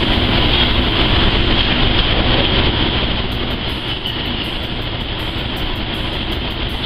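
Steady roar of commercial kitchen machinery and ventilation: a low rumble with a hiss on top, unbroken throughout.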